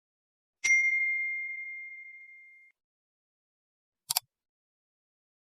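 A single bright bell-like ding that rings at one clear pitch and fades away over about two seconds, followed a couple of seconds later by a quick pair of clicks.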